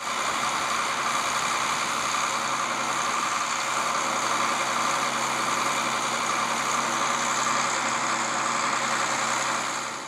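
New Holland tractor engine running steadily, driving a linkage-mounted slurry pump that serves as the intermediate booster pump on an umbilical slurry line.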